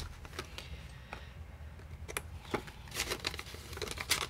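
Paper banknotes and a paper cash envelope being handled: soft rustling and crinkling with scattered light clicks, busier in the second half, over a faint steady hum.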